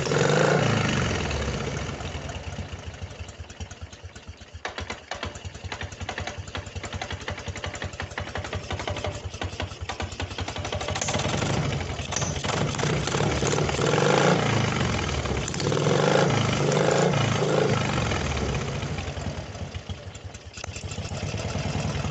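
Engine running with a knock in it, rising and falling in speed a few times, most around 12 to 18 seconds in.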